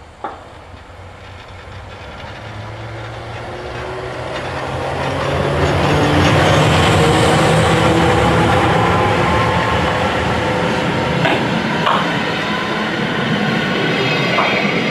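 Rhaetian Railway Ge 6/6 II electric locomotive approaching and passing close by at the head of a passenger train. Its motor whine rises in pitch and grows loud over the first six seconds, then stays steady as the coaches roll past. There is a sharp click just after the start, and a few wheel clicks near the end.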